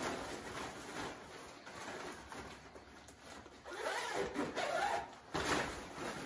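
Disposable spray-protection coverall being handled: its fabric rustling as it is unfolded and shaken out, and its front zipper being pulled open, loudest about four to five seconds in.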